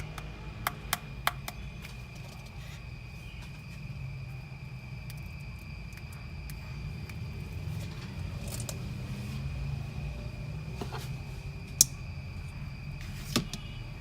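A faint steady high-pitched tone over a low hum, broken by a few sharp clicks: three in the first second and a half and two near the end, one of them the loudest sound.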